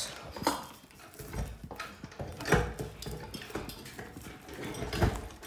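Metal clinks and knocks of a ceiling fan being hooked onto its mounting bracket: several separate sharp taps, the loudest about halfway through and another near the end.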